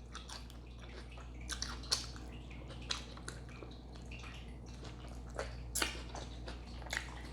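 Close-miked chewing of a dressed salad: wet mouth sounds with scattered short crunchy clicks at irregular intervals.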